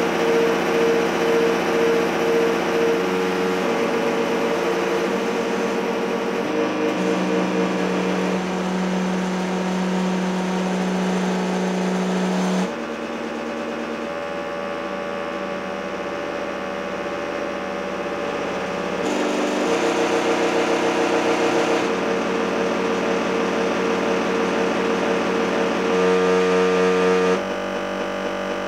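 Electronic drone of several steady tones layered together, switching abruptly to new pitch combinations every few seconds. It drops in level about 13 seconds in and comes back up about 19 seconds in.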